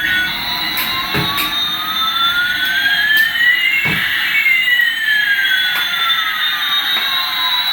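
Electronic jet-engine sound effect: a steady hissing rush with one tone rising and another falling, the two crossing about halfway through, with a few small clicks.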